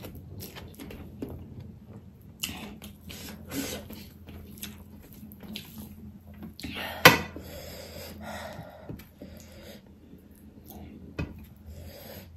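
Close-up eating sounds: chewing and wet mouth sounds, with fingers mixing rice and curry on a steel plate, making many small irregular clicks and squishes. A single sharp click about seven seconds in is the loudest sound.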